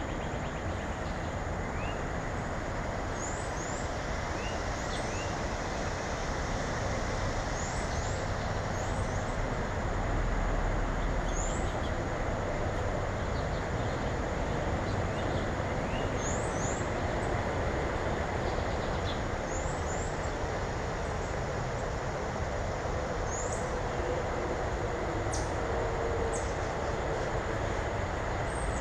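Small birds giving short, high, rising chirps, often two in quick succession, repeated every few seconds over a steady rushing noise that is louder than the calls.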